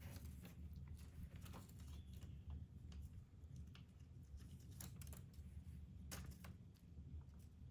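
Faint, irregular small clicks and scratches of a kitten playing, over a low steady hum.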